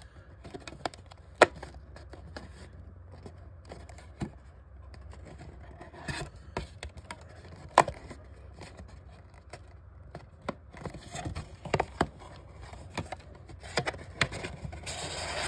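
Cardboard trading-card hobby box being handled and folded into its display: scattered clicks, scrapes and rubs of the card stock, with a brief rustle of a wrapped card pack near the end.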